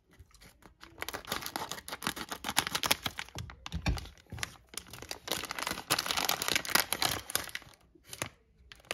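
Foil Lego minifigure blind bag crinkling and tearing as it is pulled open and handled. Dense, irregular crackling starts about a second in and stops shortly before the end.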